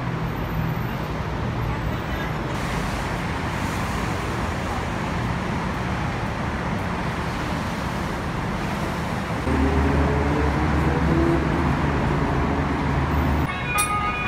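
Steady road traffic noise from busy city streets below the walkway. Past the middle, a large vehicle's engine rumbles louder for about four seconds, then drops away.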